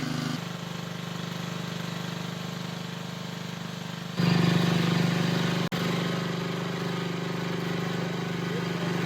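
An engine running steadily at a constant speed, jumping louder about four seconds in and cutting out for an instant just after the middle.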